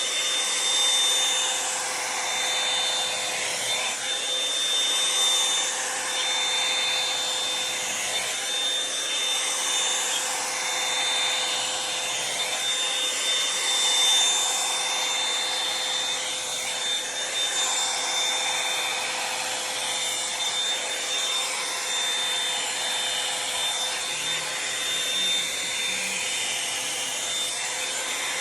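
Revlon One-Step hot-air brush running steadily: a constant rush of air with a steady whine, the air noise wavering as the brush is worked through hair.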